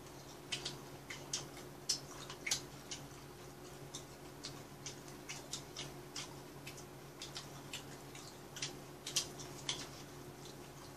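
Quiet, scattered small clicks and crunches of eating, from chewing fried chicken gizzards and from chopsticks on plates, over a steady low hum.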